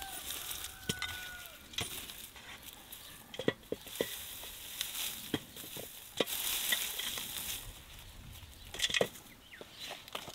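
Rustling of dry potato haulms and loose soil as potatoes are gathered by hand, with scattered short knocks as potatoes drop into a metal pail.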